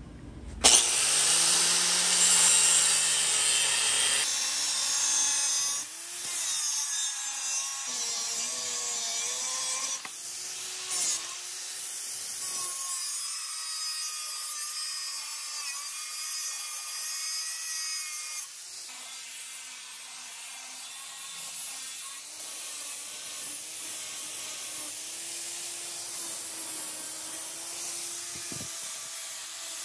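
Electric angle grinder grinding the edge of a steel bracket plate held in a bench vise, running continuously with its motor pitch wavering as the disc is pressed into the metal.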